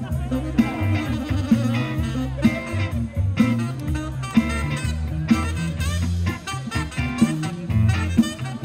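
A live rock-blues band playing an instrumental passage: electric guitar, saxophone and electric bass over a drum kit, with sharp drum hits about once a second.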